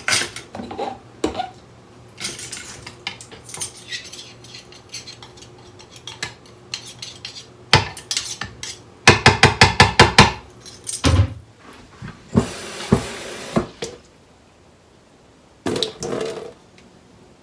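Metal knife clinking and scraping against a glass blender bowl as tahini is scooped in and knocked off the blade, with a rapid run of taps about nine seconds in. Near the end, a short pour of water into the bowl.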